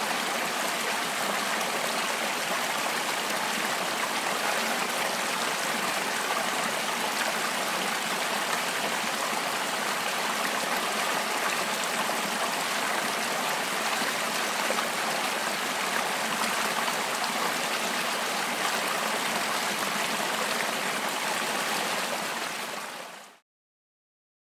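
River water rushing steadily over rocks through shallow rapids, fading out near the end.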